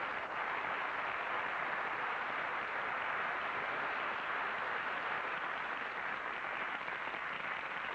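Studio audience applauding, a steady wash of clapping.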